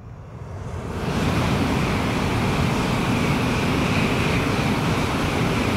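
Tōkaidō Shinkansen train crossing a river bridge at high speed. A rushing noise swells over the first second, then holds steady and loud, with a deep rumble underneath.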